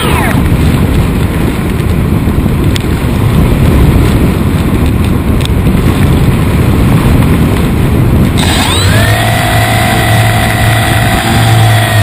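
Heavy wind rush and buffeting on the onboard camera as the foam-board RC plane glides with its motor throttled back; about eight and a half seconds in, the motor and propeller spin up to a steady whine, and it drops in pitch again near the end.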